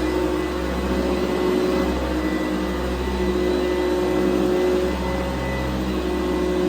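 1992 Eureka ESP upright vacuum cleaner running steadily, its motor humming with slight rises and dips in pitch and level as it vacuums the floor.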